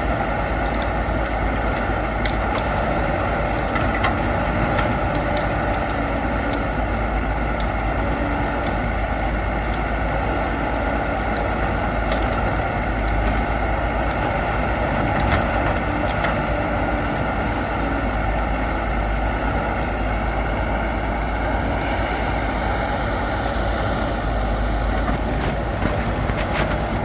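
Backhoe loader's diesel engine running steadily while it works, with scattered faint clicks and knocks.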